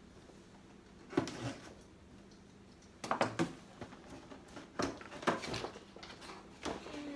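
Cardboard and plastic toy packaging being handled: a single knock with a rustle about a second in, then a string of sharp knocks and crinkles from about three seconds on.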